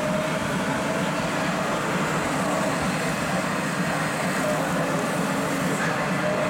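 Steady, even din of a busy exhibition hall, with no single sound standing out.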